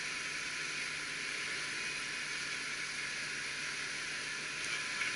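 Off-road vehicle's engine idling while it sits stopped on the rocks, heard as a faint steady low hum under an even, steady hiss.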